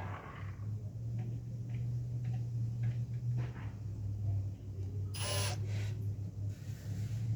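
A low, steady motor hum that drops slightly in pitch about three seconds in, with a short whirring burst about five seconds in.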